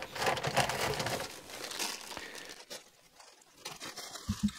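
Small clear plastic bag of bolts and lock nuts crinkling as it is picked up and handled, for about two and a half seconds, followed by a few light clicks.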